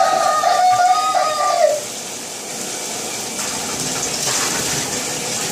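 Water poured from a cup over a dog in a bathtub, an even splashing rush from about two seconds in. Before it, a long high held tone, like a voice holding a note, ends about two seconds in.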